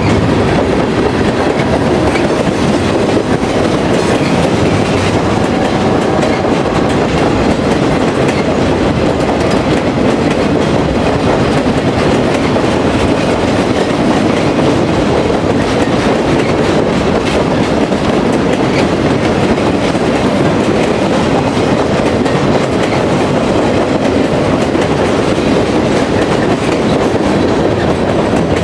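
Freight train's boxcars, gondolas and refrigerator cars rolling past: a loud, steady rumble of wheels on rail with a clickety-clack of the wheels crossing rail joints.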